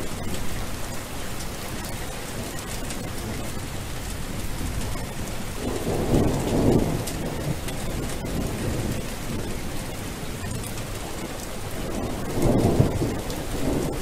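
Steady rain hiss with thunder rumbling twice, once about six seconds in and again near the end.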